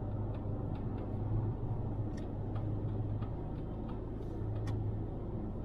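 Car driving at road speed, heard from inside the cabin: a steady low road and engine rumble with scattered faint light ticks.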